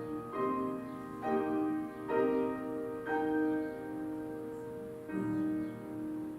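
Slow instrumental keyboard music, likely piano: chords struck about once a second, then held longer, with a new chord about five seconds in.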